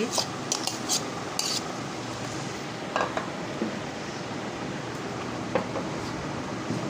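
A serving spoon scraping and knocking against a bowl as boiled chickpeas are scooped into a serving dish. There is a quick run of clicks and taps in the first second and a half, then single knocks about three and five and a half seconds in.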